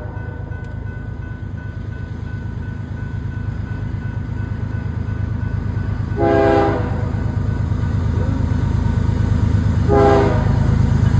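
Diesel locomotives of an approaching train, their low engine rumble growing louder, with the air horn sounded in two short blasts, about six seconds in and near the end.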